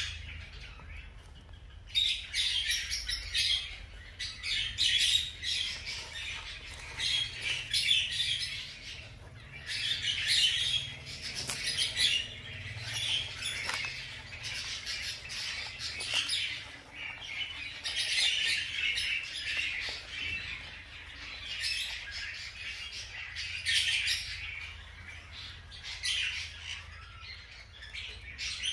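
Rapid high-pitched chirping and squeaking from small animals, in bursts of a second or two that keep recurring.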